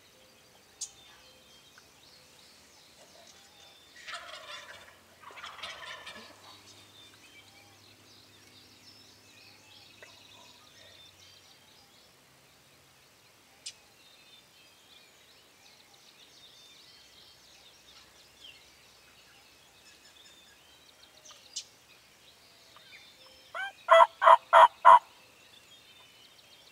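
Wild turkey gobbling: a fainter gobble a few seconds in, then a loud, close gobble of rapid rattling notes near the end, with faint songbird chirps between.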